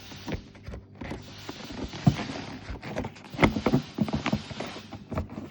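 Irregular knocks, clicks and rustling as a new air filter is pushed and worked into place in a Range Rover Sport's airbox.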